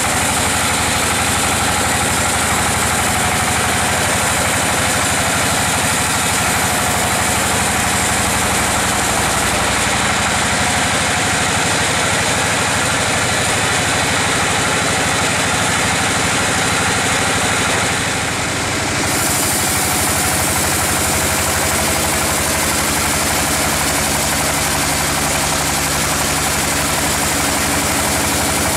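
Bandsaw sawmill running, its band blade sawing lengthwise through a log: a loud, steady mechanical drone that dips briefly and changes tone about two-thirds of the way through.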